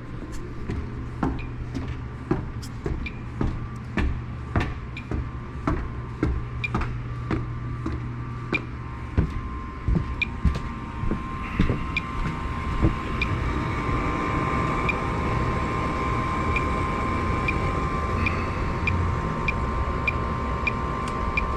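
Regular footsteps, about two a second, over a low hum that stops about nine seconds in. Then a steady mechanical whine sets in and holds, with faint ticks over it.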